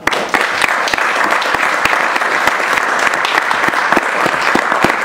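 Audience applauding at the close of a talk: many people clapping together, starting suddenly and keeping up at a steady level.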